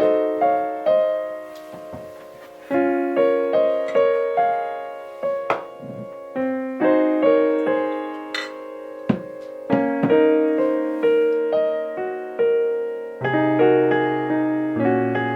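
Background piano music: a gentle melody of single notes and chords, each struck and fading, with low bass notes joining about 13 seconds in.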